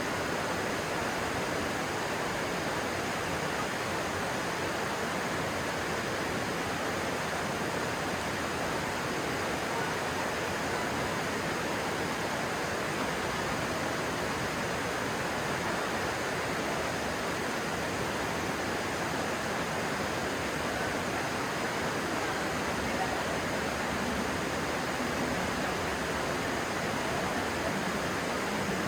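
Stream water rushing steadily, an even, unbroken rush with no breaks.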